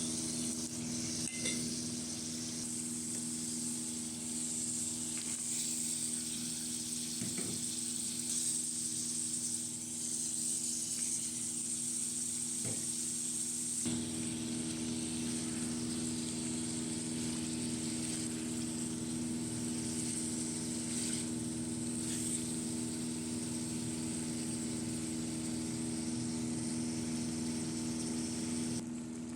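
Food sizzling as it fries in a pan, with a few light clicks of a spoon being stirred through it, over a steady low hum.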